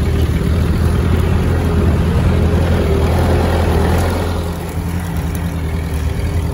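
Ford 8N tractor's four-cylinder engine running steadily as the tractor drives along, a little quieter from about four seconds in.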